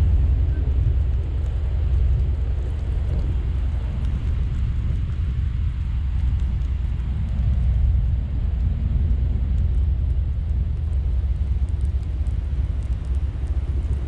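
Strong wind buffeting the microphone, a steady low rumble. Under it a pickup truck's engine runs as the truck backs into place.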